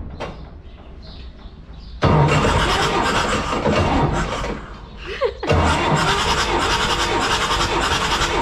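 Six-cylinder diesel engine being cranked over by its starter motor without firing, for a compression test of its last cylinder. The cranking is quieter for the first two seconds and comes back abruptly about two seconds in. It breaks off briefly around five seconds, then cranks on steadily.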